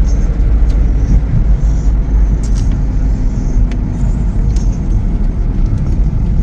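Road and engine noise inside a moving car's cabin: a steady low rumble, with a few faint clicks.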